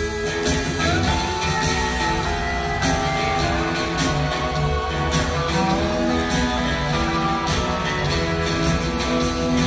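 Live electric band playing an instrumental break: electric guitars over bass and drums, with long held and sliding guitar notes.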